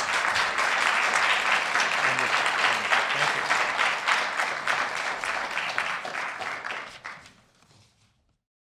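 Audience applauding: dense, steady clapping that fades out about seven seconds in.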